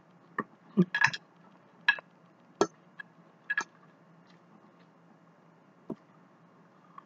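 Eating sounds: short clicks and smacks from chewing and from a metal fork tapping a plate as fries are speared. They come thickly over the first few seconds, then one more near the end.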